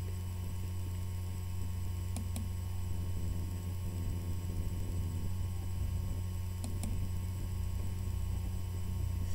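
Steady low electrical hum running under the recording, with two faint double clicks, one about two seconds in and another near seven seconds.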